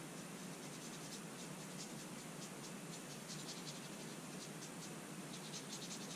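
Small paintbrush dabbing acrylic paint onto the painting: a quick, irregular run of faint short strokes, several a second, over a steady hiss.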